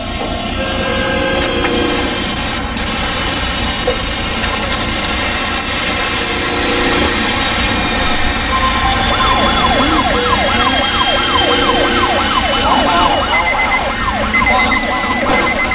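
A loud, dense wash of layered city noise with many steady tones. An emergency siren sweeps rapidly up and down in pitch through the second half, and rapid repeated electronic beeping, like a car alarm, comes in near the end.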